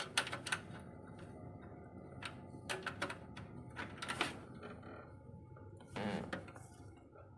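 A steady low hum of a desktop PC running, with scattered light clicks and knocks of hardware being handled.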